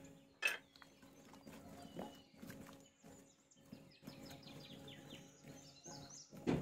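Raw potato and carrot chunks tumbling into a glass bowl of marinated chicken, with a sharp knock about half a second in, then a gloved hand mixing the chicken pieces and vegetables: soft wet squelching, rustling and small irregular knocks against the glass.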